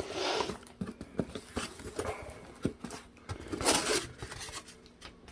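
A cardboard shipping box being opened by hand: two rustling, scraping passes, one at the start and one about four seconds in, with light knocks and clicks between them.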